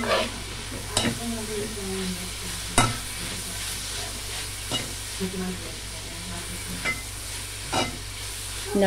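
Sliced onions, green chilies, ginger and garlic sizzling in hot coconut oil in a pan while a metal spoon stirs them, with a steady frying hiss and a few sharp clinks of the spoon against the pan.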